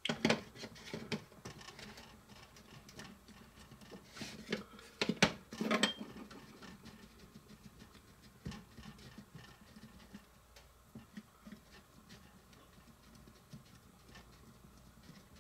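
A block of mozzarella rubbed against a small cone-shaped metal grater, making a soft, rapid scraping. Several louder scrapes and knocks come in the first six seconds, then a fainter, steady rasping.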